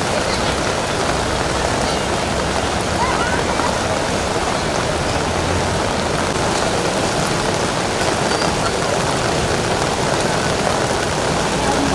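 Steady rushing of a swollen river in flood, its fast brown water churning past the bank.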